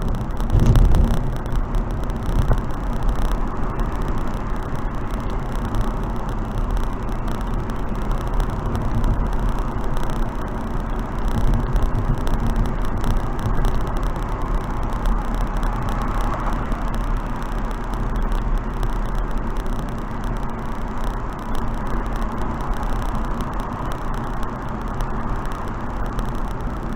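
Wind and road noise from a car driving at expressway speed: a steady rushing sound, heaviest in the low end. About a second in there is a brief, louder low rumble.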